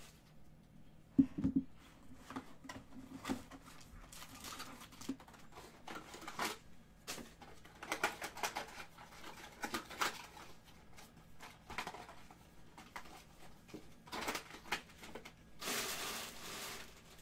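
Trading-card box and foil-wrapped card pack being handled: a sharp knock about a second in, then scattered crinkling and rustling of packaging, with a longer crinkle near the end.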